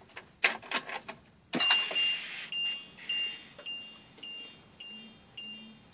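A few clicks as the ignition key is switched on, then a dashboard warning chime beeping evenly, a little under twice a second.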